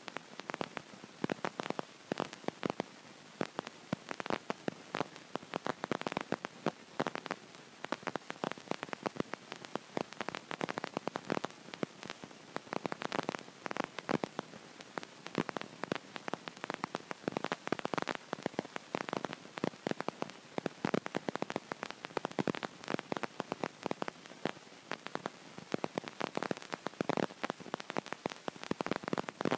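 Continuous dense crackling: irregular clicks and rustles packed closely together without pause.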